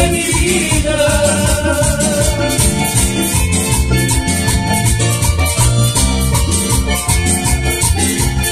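Live Latin dance band playing an instrumental passage with no singing: electric bass, electronic keyboard and hand percussion keeping a quick, steady rhythm.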